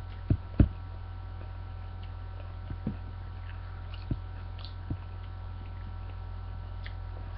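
Steady low electrical hum with a few short, sharp clicks or knocks scattered over it, the two loudest close together in the first second.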